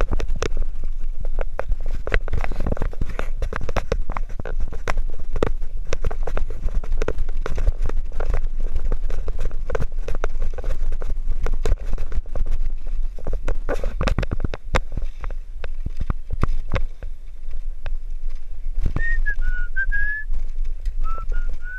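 Bicycle rattling and clattering over a rough concrete lane, the wire front basket and frame knocking with every bump, over a low rumble of wind on the microphone. Near the end a brief wavering whistle joins in.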